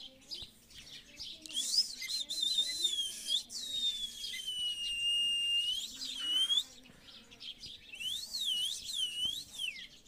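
Rose-ringed parakeet (Indian ringneck) whistling: a wavering whistle, a long falling whistle and a short rising one, then after a short pause three rising-and-falling whistled notes near the end.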